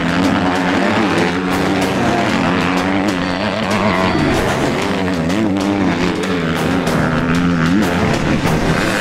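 Motocross bike engines revving on the track, their pitch rising and falling as the riders shift and throttle through jumps, with background music.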